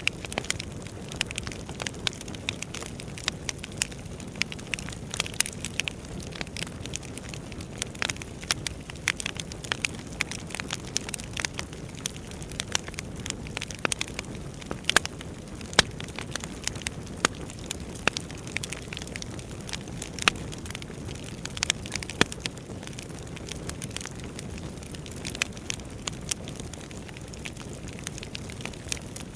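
Wood fire crackling, with irregular sharp pops and snaps over a steady low rumble of burning.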